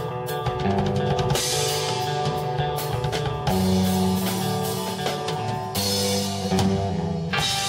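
Live rock band playing: guitar and bass holding chords over a drum kit. Cymbals crash about a second and a half in, again around six seconds in, and just before the end.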